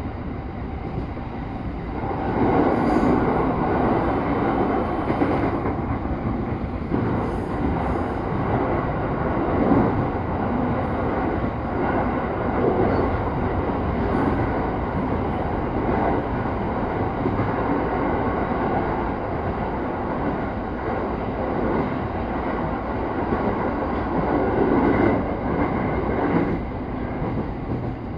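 Electric commuter train running along the line, heard from inside the front car just behind the driver's cab: a steady rumble of wheels on rail that grows louder about two seconds in.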